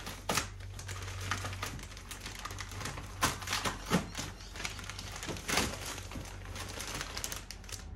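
Plastic courier satchel being cut and pulled open by hand: irregular rustling and crinkling with sharp clicks and crackles.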